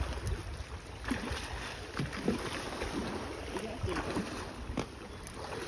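Steady low wind and sea noise on the microphone, with a few faint, brief snatches of voices.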